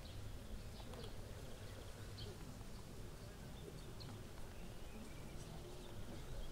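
Faint riverside ambience: scattered short bird chirps over a low, steady background rumble.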